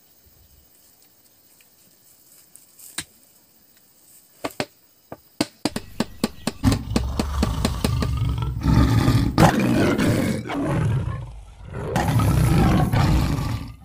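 A few scattered sharp clicks, then a loud animal roaring and growling that builds from about six seconds in, dips briefly and swells again near the end; a wild-beast roar of the kind a big cat makes.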